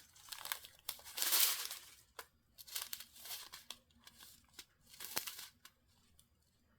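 Small plastic bags of diamond painting drills crinkling as they are handled, in several irregular bursts of rustling, loudest about a second in.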